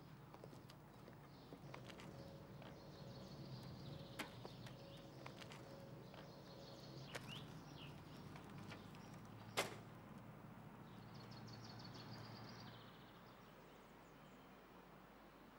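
Faint outdoor ambience with scattered bird chirps, including a short repeated trill near the end, and a few small clicks; one sharp click about ten seconds in is the loudest sound.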